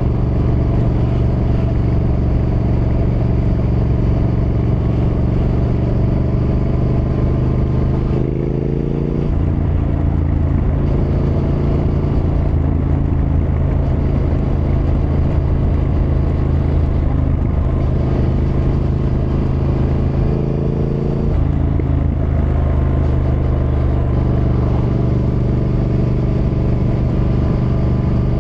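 Triumph Thruxton R's 1200 cc parallel-twin engine running under way at a steady pace. The engine pitch shifts twice, about eight seconds in and again about twenty-one seconds in, before settling back to a steady note.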